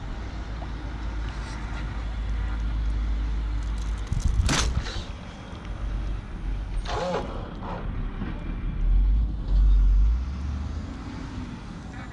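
Wind buffeting the microphone with water rushing along the hull of a model sailboat under sail, rising in louder gusts near the end. Two brief higher sounds break in, about four and a half and seven seconds in.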